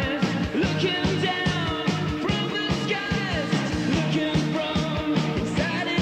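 Rock band music, a post-punk demo recording, with a steady drum beat of about four hits a second under a bass line and gliding melodic lines.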